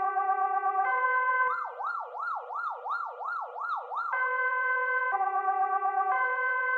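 Emergency-vehicle siren sound effect in a two-tone hi-lo pattern, stepping between two pitches about once a second. About a second and a half in it switches for a few seconds to a fast yelp, rising and falling nearly three times a second, then goes back to the two-tone.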